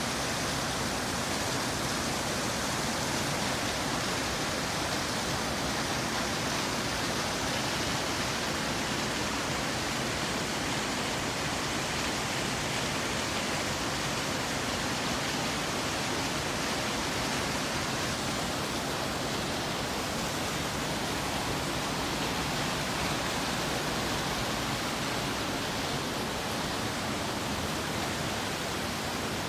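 Waterfall: a steady, unbroken rush of water pouring down through a rock cleft.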